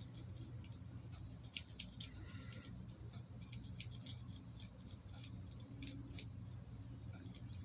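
Faint handling noise: scattered light clicks and taps as a small porcelain horse figurine is turned and gripped in the hand, in small clusters, over a low steady hum.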